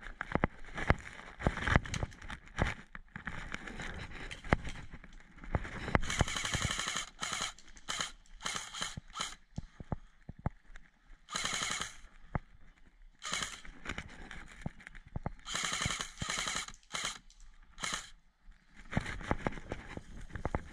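Airsoft guns firing in short full-auto bursts, about half a dozen strings of rapid fire from a third of the way in. Scattered sharp clicks and knocks come before them.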